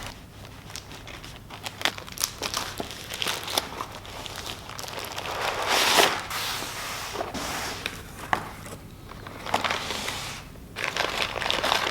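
A parcel being opened by hand: crinkling packaging with irregular small clicks and rustles, loudest about halfway through.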